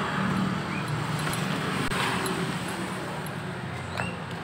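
Steady road-traffic and motor-vehicle noise from the street, with a light tap about four seconds in.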